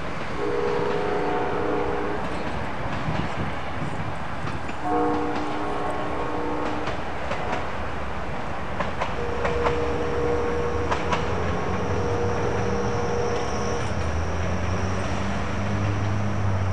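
Locomotive horn sounding for a grade crossing: two blasts of about two seconds each, then a longer one of about four seconds. A low rumble of the approaching train builds near the end.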